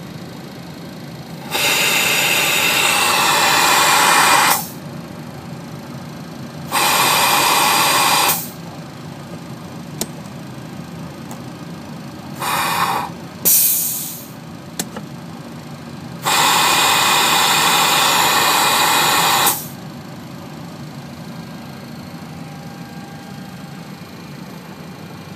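Boeing 737 crew oxygen mask being flow-tested: each press of the stowage box's TEST/RESET lever sends oxygen hissing through the mask. There are five hisses, three long ones of two to three seconds and two short ones close together in the middle, over a steady low cockpit hum.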